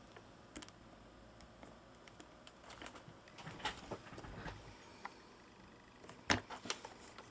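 Faint handling noise from a TomTom VIA 130 sat-nav being picked up and its touchscreen tapped: scattered soft clicks and knocks, with one sharper knock about six seconds in.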